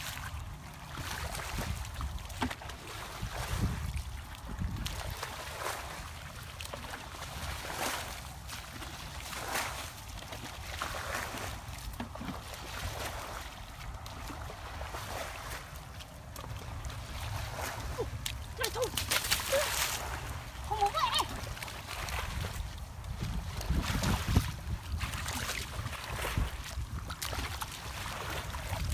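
Bare feet sloshing and splashing through shallow muddy water, with wind rumbling on the microphone; the loudest splashes come about two-thirds of the way through.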